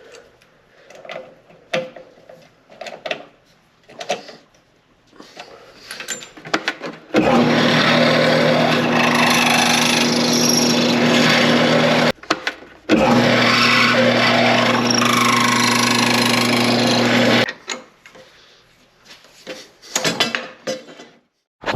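Electric drill boring holes in 1x1 metal tubing, running steadily in two spells of about five and four seconds with a short break between. Scattered knocks and handling clatter come before and after the drilling.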